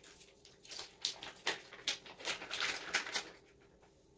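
Faint irregular rustling and crinkling, a few bursts a second, as cat food is handled for a cat's feeding; it stops about three seconds in.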